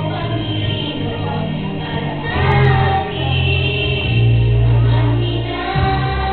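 A group of young children singing a song together over instrumental accompaniment with steady held bass notes.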